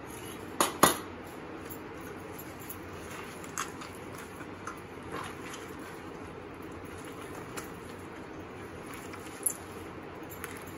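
Two sharp metal clinks about a second in, a steel spoon and bowl knocking on the steel plate as melted ghee is poured over the rotis, then soft scattered ticks and rustles of hands tearing and crumbling the rotis in the steel plate, with one more sharp click near the end.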